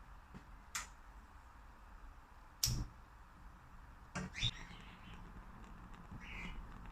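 A few sharp clicks and knocks, the loudest about three seconds in, with short rising bird chirps twice in the second half.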